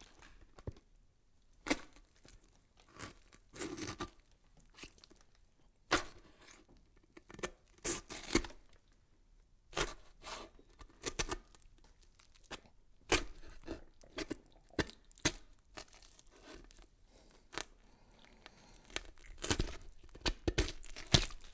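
Irregular sharp clicks and crackles, spaced unevenly, with a few short rustling or tearing stretches.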